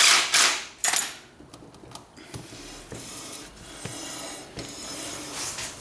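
Metal hand tools clinking and rattling as they are handled and set down, with two loud clanks in the first second, then lighter clicks and scraping.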